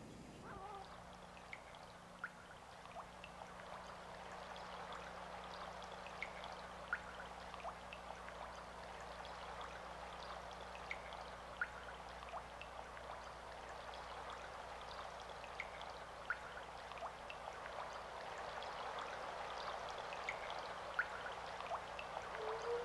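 Steady rush of running water with faint, irregular ticks scattered through it, over a low steady electrical hum; it grows slightly louder toward the end.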